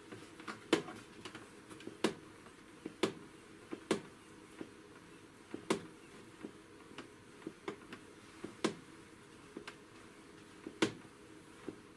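Sharp clicks at irregular intervals, roughly one a second, from an air pressure generator being worked by hand to draw a vacuum on an aircraft pressure sensor.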